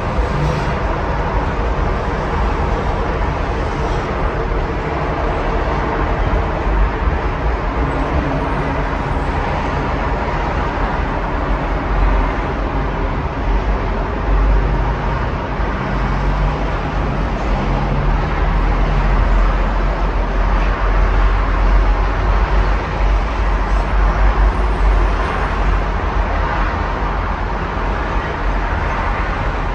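Steady road traffic: a continuous wash of car and truck engines and tyre noise with a deep low rumble. One passing engine's low hum stands out for several seconds around the middle.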